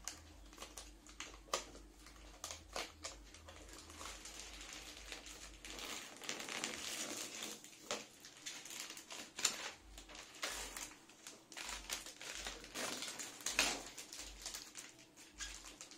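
Clear plastic protective film crinkling and crackling as it is peeled off the front panel of a split air conditioner's indoor unit. Scattered sharp crackles run throughout, with two louder stretches of rustling, one midway and one near the end.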